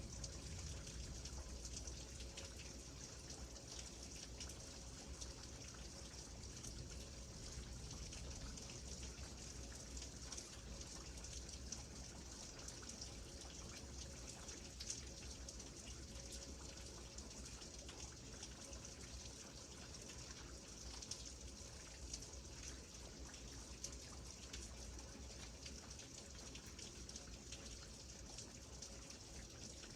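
Steady rain falling, an even hiss dotted with many small drop ticks, over a low rumble.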